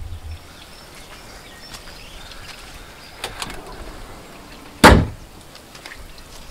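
The bonnet of a Volvo XC40 Electric is pulled down and slammed shut, making one loud thud just under five seconds in. A fainter knock comes about a second and a half before it.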